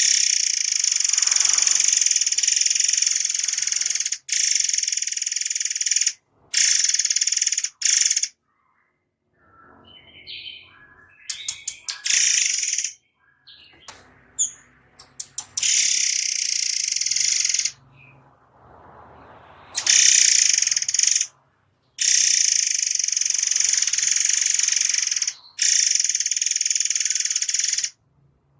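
Murai songbird singing in bursts of dense, rapid-fire high-pitched trills. Each burst lasts one to four seconds and starts and stops abruptly. Between bursts, around the middle, there are shorter, softer chirps.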